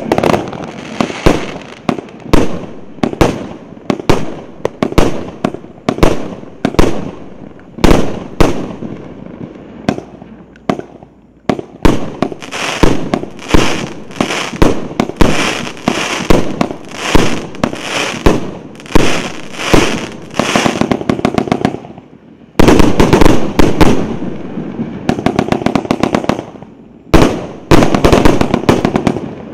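Firework cake of 100 1.25-inch shots firing one after another, roughly two a second, each shell launching and bursting. About 22 seconds in, the shots get louder and come in a rapid barrage.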